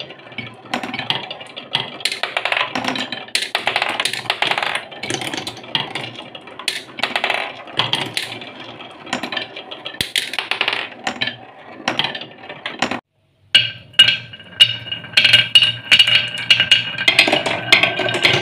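Marbles rolling and clacking around a wooden spiral track of a marble run: a dense run of small, irregular knocks of hard balls on wood. After a brief break about two-thirds in, marbles roll along a wavy wooden slope, and a steadier ringing tone joins the knocks.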